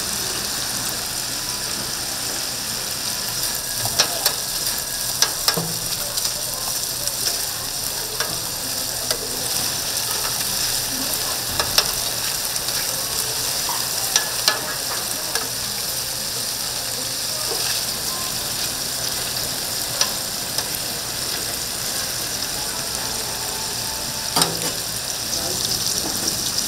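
Tteokgalbi, Korean minced short-rib patties, sizzling steadily as they fry, with occasional sharp clicks.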